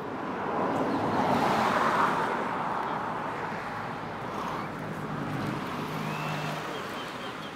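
A road vehicle passing by: tyre and engine noise swells over the first couple of seconds, then slowly fades, leaving a low engine hum.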